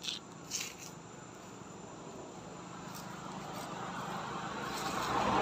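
Motorbike approaching along the road, its engine and tyre noise growing steadily louder, with two brief scratchy noises near the start.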